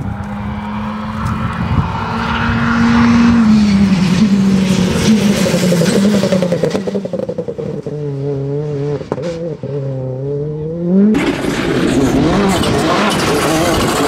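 Rally car engines at speed on a special stage: an engine pulls hard, its note rising and falling through the gears, then drops low and wavers as the car takes a bend before climbing again. About eleven seconds in the sound cuts abruptly to another rally car, a Volkswagen Polo GTI R5, approaching at full throttle.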